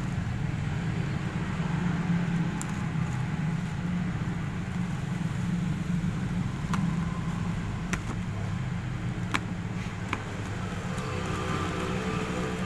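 A steady low mechanical hum, with a few light clicks now and then.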